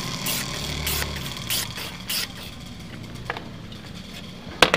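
A block of ice is pushed by hand across a bladed wooden shaving board, making several short scraping strokes in the first two seconds as it is shaved into flakes. A sharp click comes near the end.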